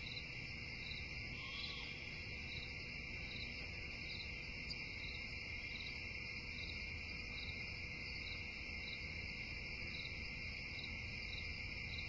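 Insects calling: a steady, unbroken high trill with a separate short chirp repeating evenly a little more than once a second.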